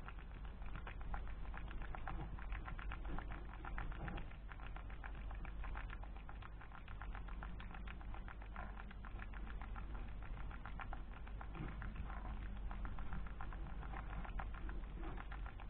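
White-bellied hedgehog eating at close range: a dense, irregular run of small chewing clicks.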